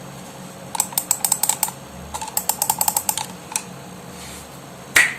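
Typing on a computer keyboard: two quick runs of keystrokes, a single keystroke after them, and a louder knock near the end.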